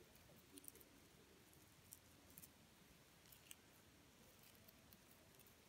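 Near silence: room tone with a few faint, short ticks and rustles from paper cord being handled and looped by hand.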